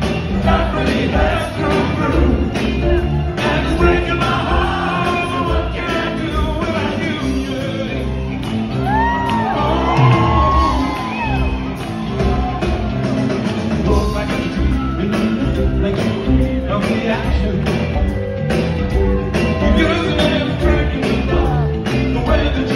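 Live band performing with a male lead singer, heard from the audience in a large hall, with a steady beat.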